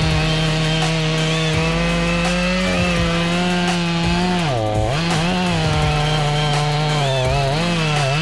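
Stihl MS500i two-stroke chainsaw running at high revs while cutting. Its engine note holds steady, then sags sharply about four and a half seconds in and recovers, with a shorter dip near the end, as the chain bites into the wood.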